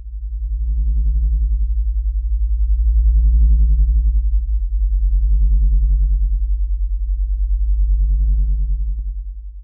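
Intro music: a deep, steady synthesizer drone with four slow swelling tones laid over it, each about two seconds long.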